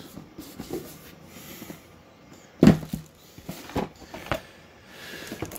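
Cardboard game boxes and pieces being handled on a table: soft rustling with a few light knocks, and one sharper knock about two and a half seconds in.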